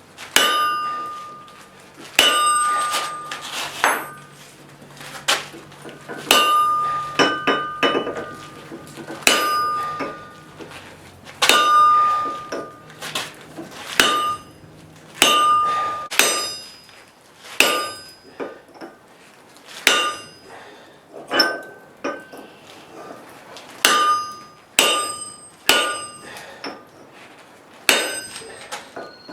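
Blacksmith's hand hammer striking steel on an anvil, irregular blows about once a second, often in quick pairs, with the anvil ringing after many of them.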